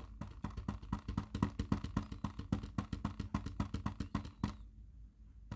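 Rapid, even tapping, about seven or eight taps a second, that stops about four and a half seconds in.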